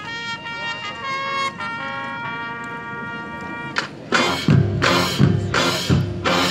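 High school marching band playing: soft held notes at first, then about four seconds in the full band and drums come in much louder, with heavy accented hits about twice a second.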